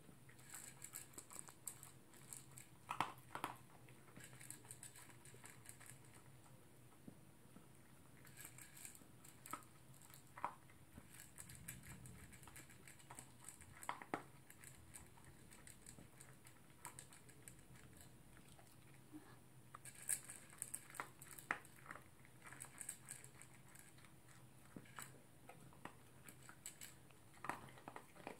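Toy poodle eating dry kibble from a plastic bowl: faint crunching and clicking at the bowl, in spells with quiet pauses between.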